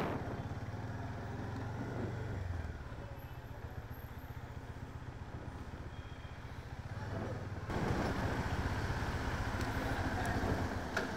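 Bajaj Dominar 400's 373cc single-cylinder engine running at low revs, its firing pulses heard throughout. About eight seconds in, a louder rushing noise joins it.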